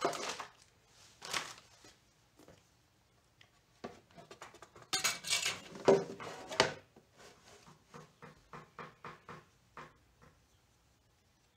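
Hard plastic knocks, rattles and clicks as the white plastic trunk of a 1993 Yamaha Riva 125 scooter and its lock parts are handled and fitted together. A cluster of louder knocks comes around the middle, then a run of quick light clicks near the end.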